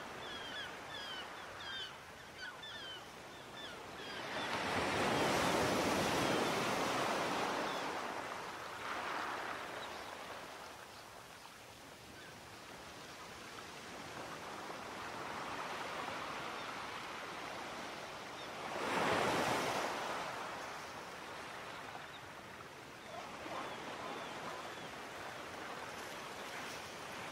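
Sea waves washing onto a shore, rising and falling in slow surges: a big one about five seconds in, the loudest break near twenty seconds, and smaller ones between. A few short high chirps sound over the water in the first seconds.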